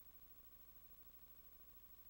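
Near silence: a faint steady hiss with a thin steady tone, the noise floor of a silent archival film transfer with no sound of the eruption itself.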